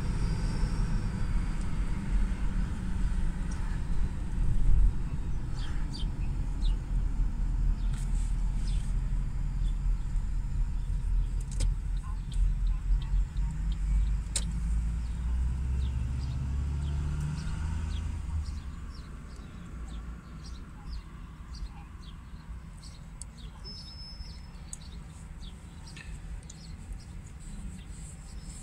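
Low road and engine rumble heard from inside a moving vehicle in city traffic. It eases off about two-thirds of the way in as the vehicle slows, leaving a quieter idle with faint scattered ticks.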